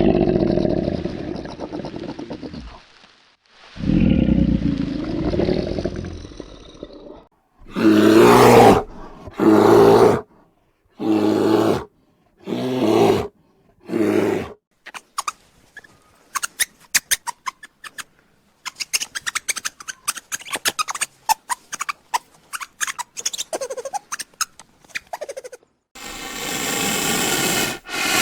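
A run of animal sounds: two long, loud roars, then five short calls in quick succession, then a stretch of scattered clicks, with a breathy hiss starting near the end.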